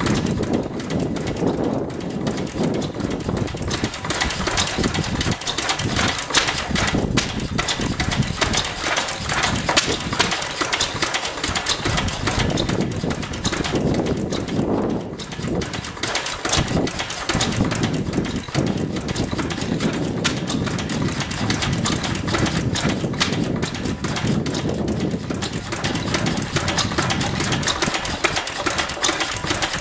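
Vintage Lister single-cylinder stationary engine running steadily, its firing making an even, rhythmic beat.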